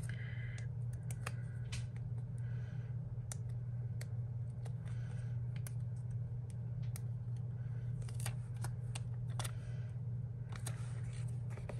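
Handling of clear plastic stickers and small craft scissors: a few brief soft rustles and scattered light clicks and ticks, over a steady low hum.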